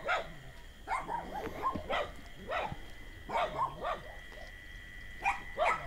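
A dog barking repeatedly, roughly one to two barks a second.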